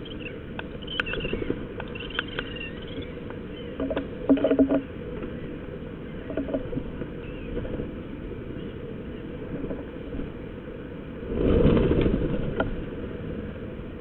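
Iberian magpies feeding at a carcass close to the microphone: scattered pecking taps and knocks, with a few short high calls in the first few seconds and a louder rushing noise about eleven seconds in, lasting about a second.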